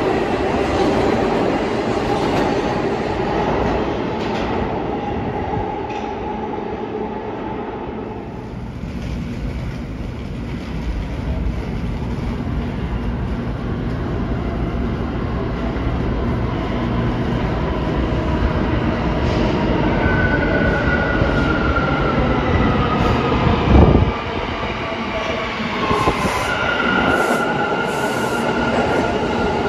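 New York City Subway train running through the station, with steady rail noise throughout. From about twenty seconds in, a motor whine falls in pitch as the train slows, and a loud thump comes about four seconds later.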